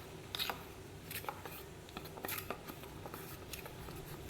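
Gram flour and a little water being stirred into a paste in a small vessel, the utensil scraping and clicking irregularly against the sides.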